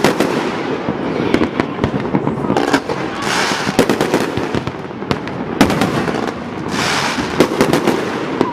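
Fireworks going off: a rapid, irregular string of sharp bangs and booms, with bursts of hissing crackle between them.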